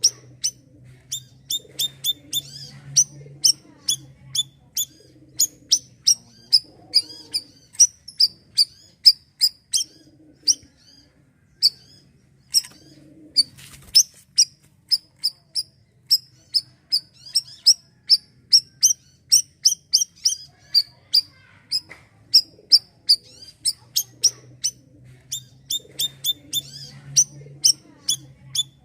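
A bayeman (siri-siri) songbird calling in a long run of short, sharp, high chirps, two or three a second, with a couple of brief pauses.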